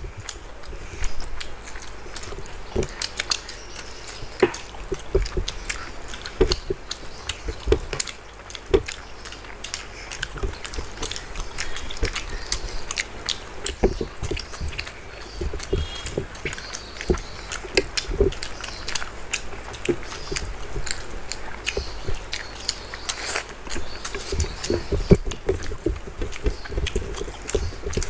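Close-miked chewing and mouth sounds of two people eating rice and chicken curry with their hands, with many small wet clicks.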